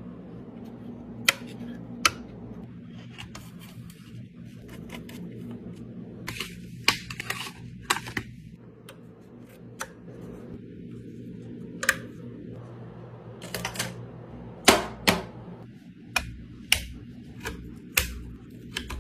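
Irregular clicks and clacks of small hard parts being handled, a few at a time with pauses, the loudest pair about fifteen seconds in, over a steady low hum.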